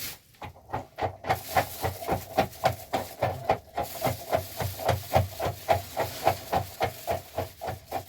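Rhythmic rasping strokes, about three a second, starting about a second in, over a steady ringing tone.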